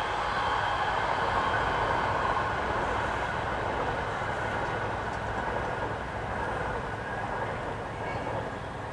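Steady rushing and rumbling of a passing vehicle, slowly fading away.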